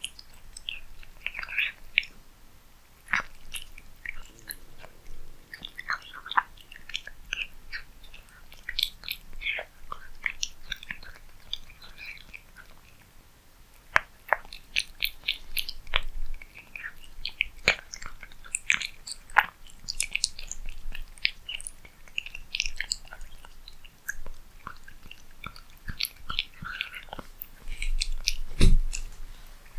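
A cat eating cat food close to the microphone: irregular chewing, crunching and mouth smacks. There is one louder low bump near the end.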